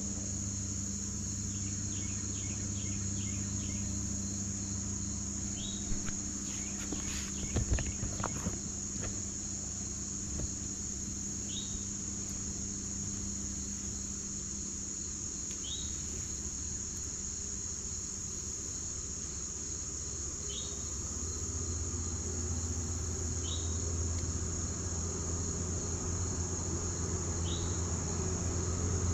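A steady, high-pitched trilling chorus of insects, with short falling chirps every few seconds. A few light clicks come about a quarter of the way in, and a low hum grows louder in the second half.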